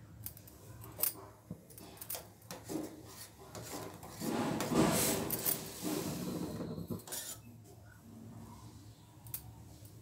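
Milk tea boiling up and foaming in a stainless steel pan, a bubbling hiss that is loudest in the middle, with a metal spoon clicking and scraping against the pan.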